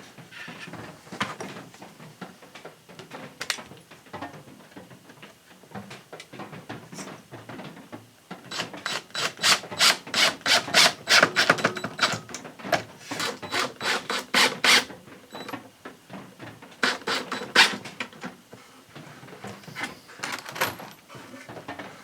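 Wood being worked by hand with rasping strokes: scattered scrapes, then a quick regular run of about three strokes a second through the middle, and a few more near the end.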